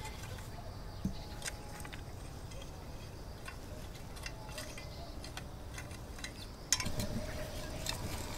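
Garden rake dragged through dry, stony soil: soft scraping with scattered small clicks of the tines against pebbles, the sharpest about seven seconds in.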